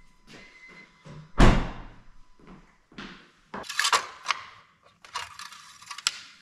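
A single heavy thunk about a second and a half in, followed by a few lighter knocks and two stretches of rustling and scraping handling noise.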